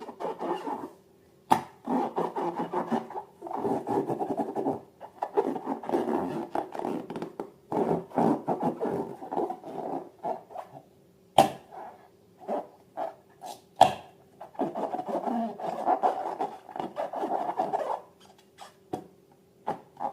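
Slime being squeezed and kneaded by hand, giving runs of sticky crackling of a second or two at a time with short pauses. There are a few sharp snaps, and a faint steady hum runs underneath.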